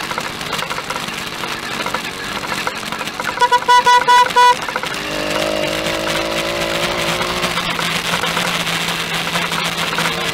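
Motorized bicycle's small engine running while riding, with its horn sounded in a quick series of about five short, loud toots about three and a half seconds in. Afterwards the engine note steadies.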